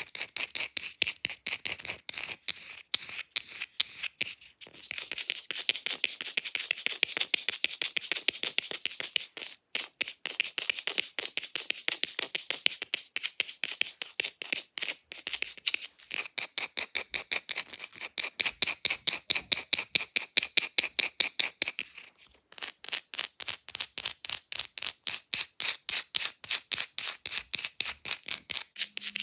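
Fast scratching with long fake nails over an object's surface: a rapid train of short, crisp scratch strokes, several a second, with brief pauses about ten seconds in and again around twenty-two seconds.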